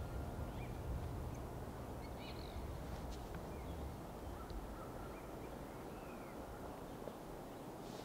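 Outdoor winter ambience: a steady low rumble with a few short, faint bird calls scattered through it.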